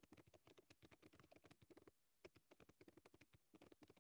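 Faint rapid clicking of typing on a laptop keyboard, in quick irregular runs with a short pause about halfway through.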